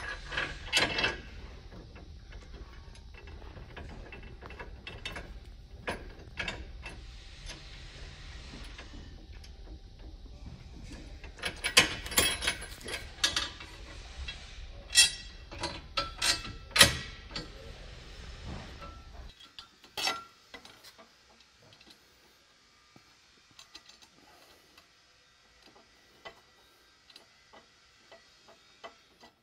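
Irregular metallic clicks and clinks of steel bolts, nuts and support-strap brackets being handled and fitted to a steel mount bracket, with a cluster of louder clanks in the middle. A steady low hum runs under the first two-thirds and cuts off suddenly; after that only faint, sparse clicks remain.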